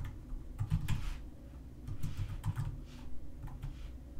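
Computer keyboard being typed on: three short runs of keystrokes with pauses between.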